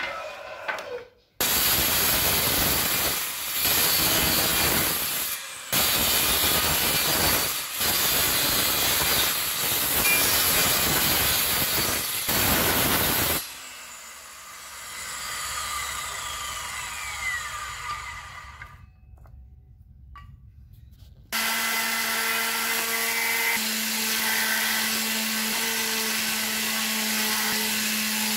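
A brief knocking of wooden sticks, then an electric circular saw cutting hardwood in long, loud passes with short breaks. About 13 seconds in the saw is released and its blade winds down with a falling whine. After a short pause, about 21 seconds in, an electric palm sander starts and runs steadily with a constant hum.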